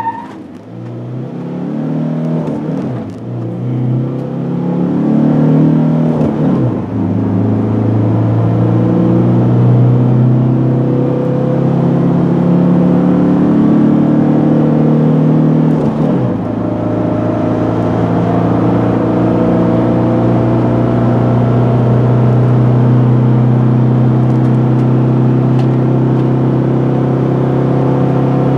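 1999 Nissan Serena Cargo's 2.3-litre LD23 diesel engine, heard from inside the van, accelerating hard through the gears. The pitch climbs and drops at each upshift, a few seconds in, around six seconds in and around sixteen seconds in, then rises slowly and steadily in the last gear.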